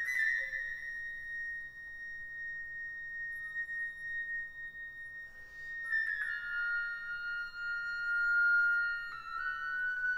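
Two flutes playing long, held high notes in contemporary chamber music. About six seconds in a second, lower held note enters against the first, just after a short breathy sound.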